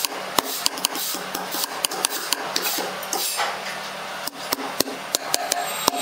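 Hammer blows on steel rods being driven into a large timber block, in quick irregular runs of sharp metallic strikes with a short lull near the middle. A steady low machine hum runs underneath.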